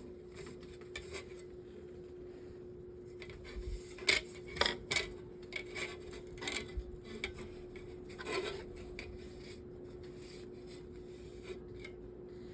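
Wipe rubbing over a metal table-fan blade, with scattered light clinks and knocks of the metal, clustered about four to five seconds in and again a little past eight seconds. A steady faint hum runs underneath.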